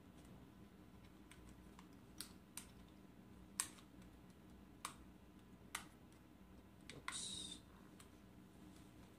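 Faint, sharp single clicks of the buttons on a handheld Edge blood lactate meter being pressed, about five of them spaced a second or so apart, followed near the end by a brief rustle of the device being handled.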